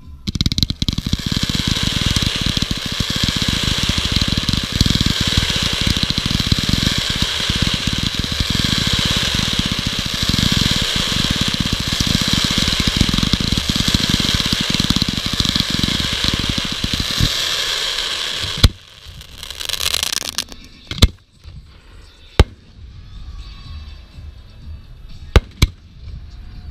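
Fireworks: a dense barrage of rapid-fire shots with a continuous high hiss and whistle for about eighteen seconds, cut off by a sharp crack. A short noisy burst follows, then several separate sharp bangs.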